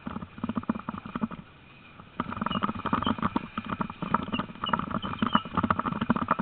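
Rapid, irregular clatter and patter of a six-dog sled-dog team running in harness on grass and pulling on the gangline, with a short lull about a second in. A few faint high squeaks come through later.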